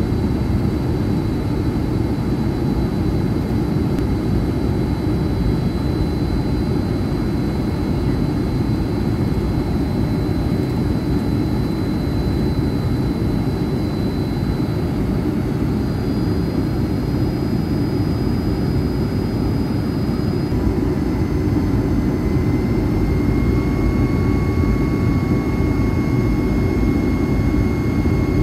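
Steady roar of a jet airliner's engines and airflow heard inside the passenger cabin during descent for landing. Faint high whining tones run over it and shift in pitch about twenty seconds in.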